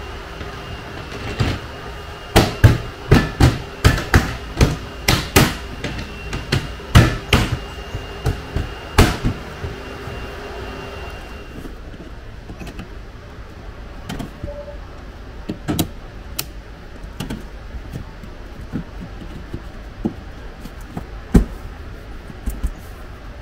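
A plastic car trim panel is pressed down by hand onto its clips, giving a quick run of sharp snaps and knocks. Then come fainter, scattered knocks as a rear seat cushion is pushed back onto its mounts, with one sharp snap near the end.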